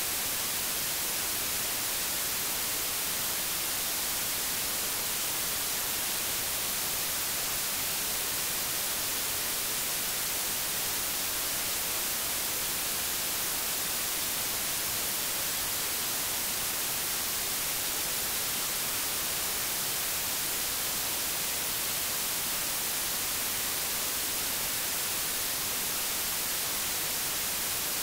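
Steady, even hiss of static from a VHS tape transfer, with no other sound in it.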